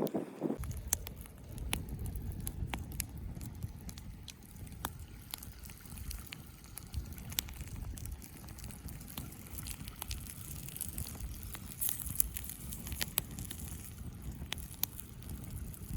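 Small fire crackling with scattered pops and a brief hiss about twelve seconds in, under a steady low rumble of wind on the microphone.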